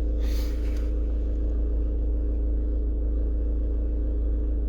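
Steady low hum and rumble with a few constant tones above it, and a short rustle less than a second in.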